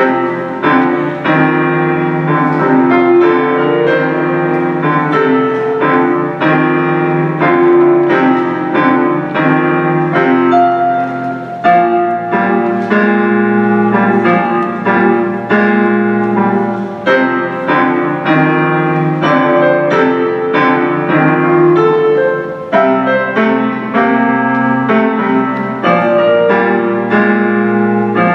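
Piano music played on a Roland digital keyboard: a steady run of struck chords and repeated notes, instrumental with no singing.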